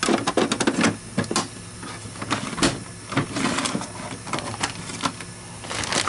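Irregular plastic clicks, taps and rattles from hands handling the housing of an Aerus Electrolux upright vacuum around its HEPA exhaust filter and bag compartment, over a steady low hum.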